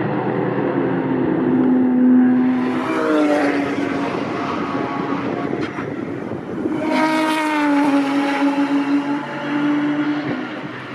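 Racing car engines at high revs as cars pass on a race track. The engine note rises and falls in pitch, with a strong rise and fall about seven seconds in as a car goes by.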